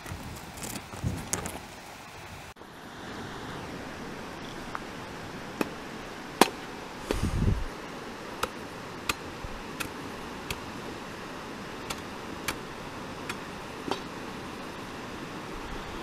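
A carrot scraped across a hand grater for the first couple of seconds, then kindling being chopped on a wooden block: a series of sharp knocks of a blade biting into wood, roughly one every 0.7 s. A steady rush of fast-flowing river water runs underneath.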